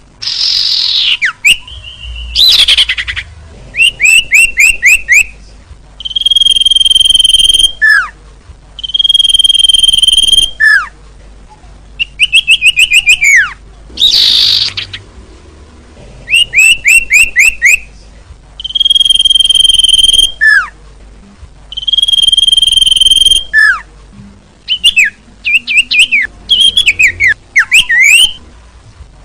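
Common iora lure call played over and over. Long steady whistled notes of about a second and a half alternate with quick runs of short falling notes and long downward-sliding whistles.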